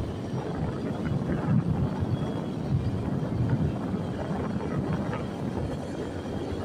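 Low, uneven rumble of a vehicle on the road, with wind buffeting the microphone.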